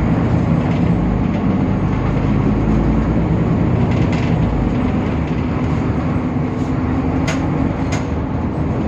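Temsa Avenue LF city bus running with its DAF PR 228 diesel engine and ZF automatic gearbox: a steady low engine hum with rattling, and two sharp clicks a little after seven and eight seconds in.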